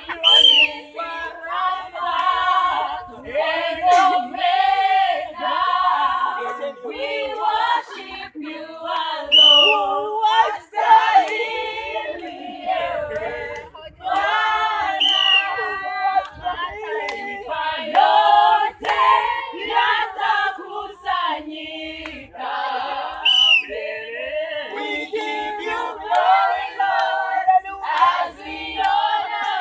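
A group of people singing together without instruments, with a short high rising-and-falling call breaking in every several seconds.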